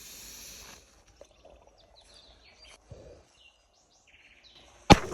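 A short hiss at the start, then faint bird chirps, then a single sharp firecracker bang near the end.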